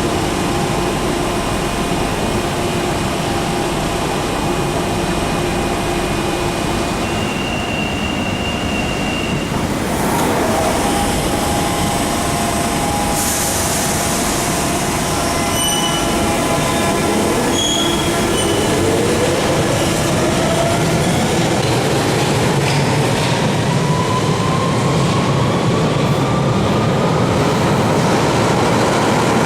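London Underground 1992 Tube Stock train on the Central Line, standing at the platform with steady tones from its equipment, then a hiss of air and a few short beeps, and from about halfway through pulling away with its motor whine rising steadily in pitch as it accelerates.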